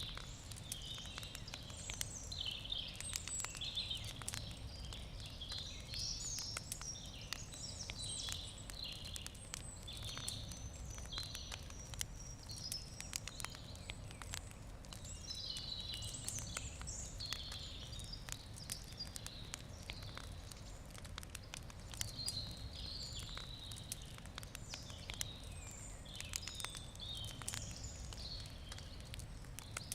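Wood campfire crackling with frequent small sharp pops, while songbirds chirp and trill throughout.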